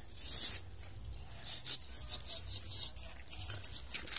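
Sand being scraped and dug with a stick and a small hand hoe: a series of short, rasping scrapes, the strongest right at the start and again about a second and a half in.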